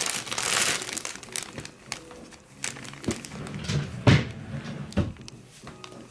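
Plastic bag crinkling and rustling as a cat shifts about inside it, loudest in the first second, with two thumps about four and five seconds in.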